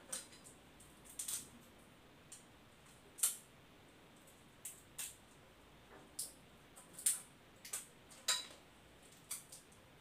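A person chewing food close to the microphone: irregular wet clicks and smacks from the mouth, about a dozen over the stretch, with a few louder ones around the middle.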